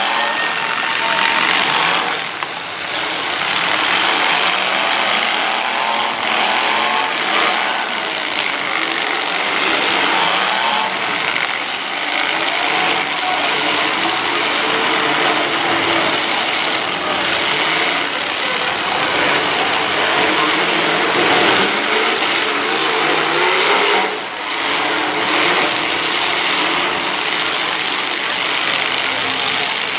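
Many demolition derby cars' engines running at once, revving up and down in overlapping, wavering pitches as the cars manoeuvre and push into one another.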